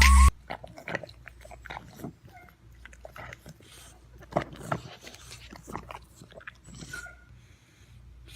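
A pet chewing: an irregular run of short, quiet crunches and clicks.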